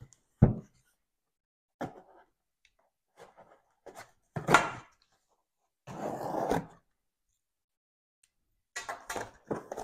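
Small knife cutting packing tape on a cardboard box: a few short cuts and scrapes against the cardboard, the loudest about four and a half seconds in, and a longer rasping slit along the tape about six seconds in. Near the end, crackly clear tape being picked and peeled off the box.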